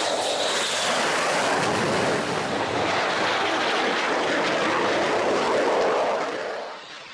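Loud, steady jet noise from a pair of Dassault Mirage 2000 fighters, each with a SNECMA M53 turbofan, passing low overhead; the noise drops off sharply near the end.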